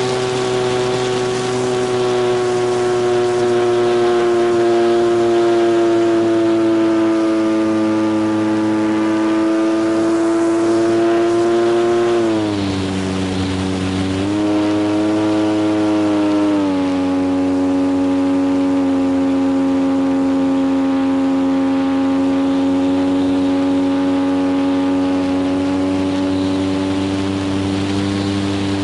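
Electric motor and propeller of an RC T-28 Trojan model plane in flight, picked up close by the onboard camera, running at a steady pitch. About twelve seconds in the pitch drops sharply, climbs back briefly, then drops again a few seconds later and holds lower as the motor slows.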